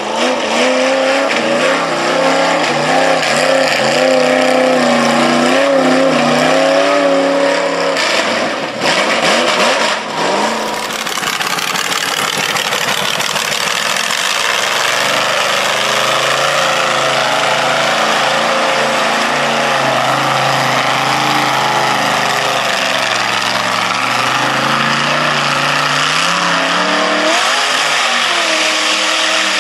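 Mud bog truck engines revving hard, their pitch rising and falling, with an abrupt change to a different, lower-pitched engine about nine seconds in.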